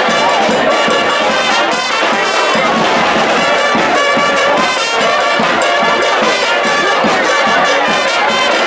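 Charanga brass band playing loudly, with trumpets and trombones carrying the tune.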